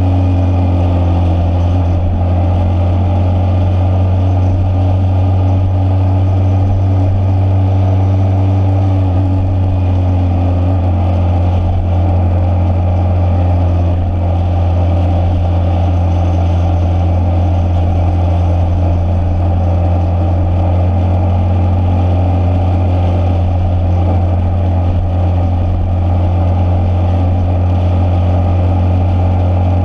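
Motorcycle engine running at a steady cruising speed, a constant low drone.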